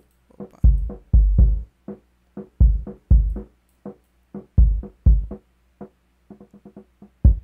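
Recorded kick drum tracks playing back alone, run through an SSL-style channel strip with its expander set to a fast attack and release. Deep kick thumps come mostly in pairs about half a second apart, roughly every two seconds, with fainter short hits between them.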